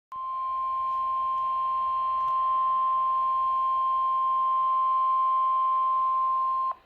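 NOAA Weather Radio 1050 Hz warning alarm tone: one steady, high-pitched tone lasting about six and a half seconds, which starts abruptly and cuts off sharply. It signals that a warning broadcast, here a severe thunderstorm warning, is being sent.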